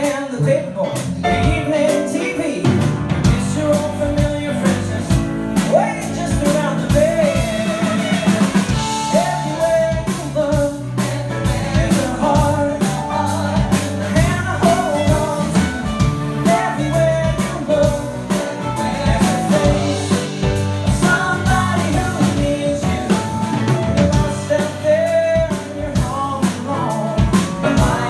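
Live music: a male singer sings a TV theme song medley, backed by piano, upright bass and drums keeping a steady beat.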